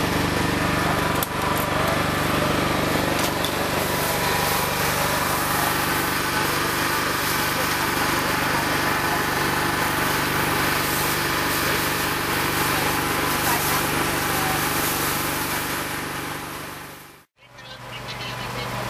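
A motor engine runs steadily with a low, even hum. Near the end the sound cuts out for a moment, then a similar engine drone fades back in.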